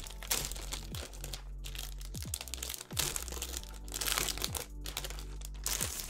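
Thin plastic wrapping crinkling in several loud rustling bursts as it is pulled off a keyboard.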